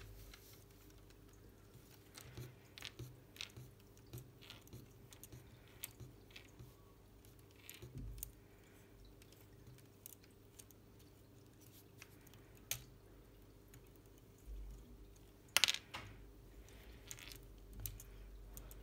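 Small plastic clicks and taps of LEGO Technic parts being handled and pressed together by hand as a winch is fitted to a model buggy's front bumper, with a sharper pair of clicks about three-quarters of the way through.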